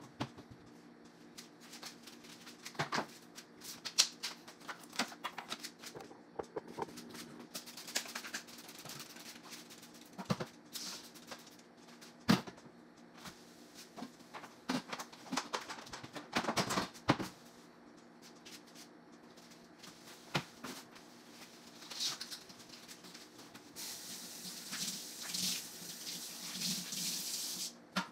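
Dishes and utensils clattering and clinking while being washed at a kitchen sink, over a faint steady hum. A tap runs with a steady hiss for about four seconds near the end.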